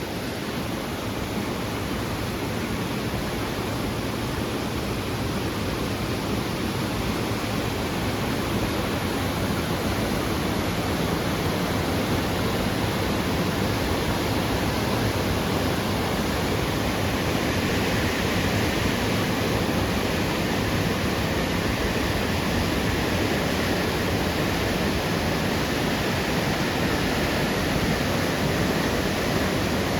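Heavy rain and rushing water: a steady, unbroken wash of water noise that grows slightly louder and brighter over the second half.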